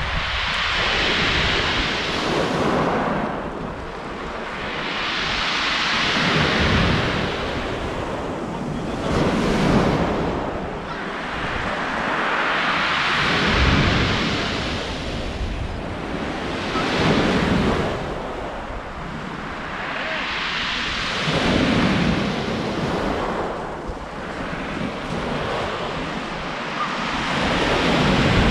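Sea waves breaking on the shore, the surf hiss swelling and fading about every four seconds, with wind buffeting the microphone.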